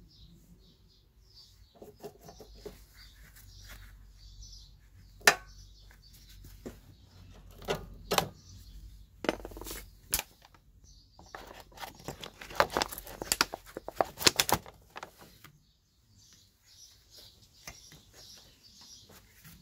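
Metal clicks and clinks of hand tools and parts being handled: sharp single clicks a second or two apart, then a dense run of clinking lasting a couple of seconds after the middle.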